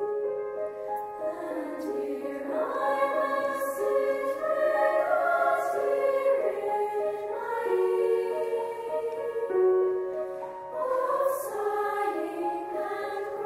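Choir singing a slow piece in harmony, with long held notes.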